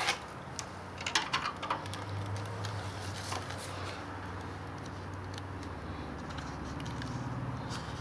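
Light clicks and rattles of a 3D-printed plastic prop rifle being unhooked and handled, most of them in the first two seconds, over a steady low hum.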